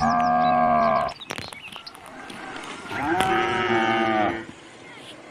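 A calf mooing twice, each moo a long call of about a second or more, with a few short clicks between the two calls.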